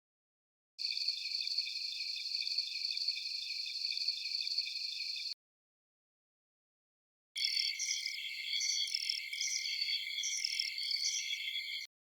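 Night insect chorus with cricket-like trilling, heard as two separate clips of about four and a half seconds each, with dead silence before, between and after them. The second clip carries repeated higher chirps over the trilling.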